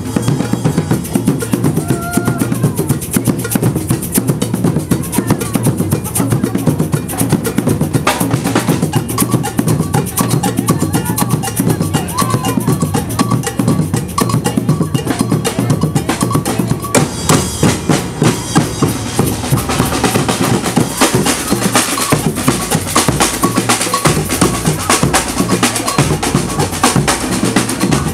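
Percussion band drumming a fast, dense rhythm on large bass drums struck with mallets, with snare-like rattling on top. The higher, sharper drumming grows louder about two-thirds of the way through.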